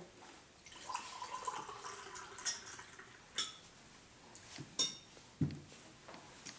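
Lemonade pouring from a plastic pitcher into a drinking glass, followed by a few sharp clinks of glass and cutlery and a dull thump as the pitcher is set down on the table.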